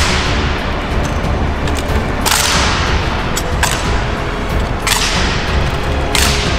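Honor guard rifle drill: sharp slaps and claps as hands strike and catch the bayoneted rifles, three loud strikes and several lighter ones, each ringing on in the echoing stone hall.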